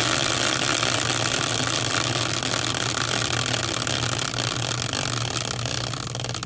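A hand-spun caster wheel whirring and rattling on its axle in a metal fork, a steady whir that slowly fades as the wheel loses speed.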